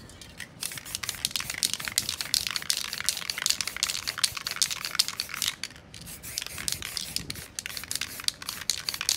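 Aerosol spray paint can sprayed in many short, quick bursts, mixed with crinkling as a wad is pressed and dabbed into the wet paint.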